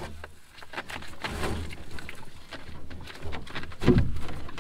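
Scuffing footsteps and brush crackling as a canoe is carried overhead down a steep portage trail, with a loud, low thud about four seconds in.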